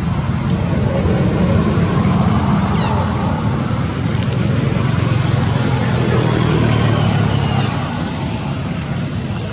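Steady low engine rumble of motor traffic, with a couple of faint high chirps.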